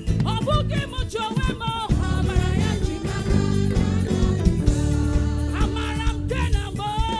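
Church choir singing an upbeat praise song with a live band: guitar, bass and drum kit.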